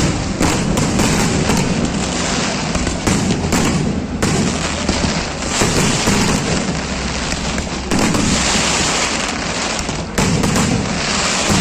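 Fireworks display: a dense, unbroken barrage of bangs and crackling from many shells going off in quick succession.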